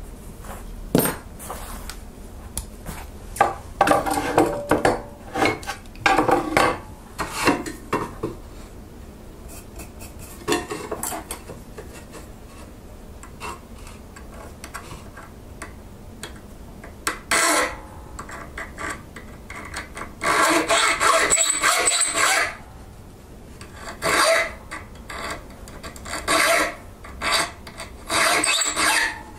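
Hand file scraping along the edge of a small forged steel piece held against a wooden board. The strokes come in short runs with pauses between them, and the longest, steadiest run is about twenty seconds in.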